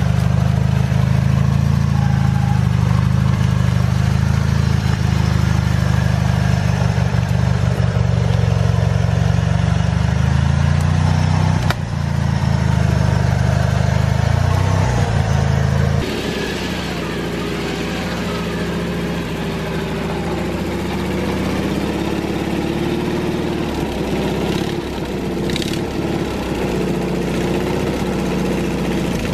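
Engines of modified off-road riding lawn mowers running as they crawl over logs and rough trail, with wavering engine pitch. About halfway through the sound changes abruptly to a different, quieter mower engine.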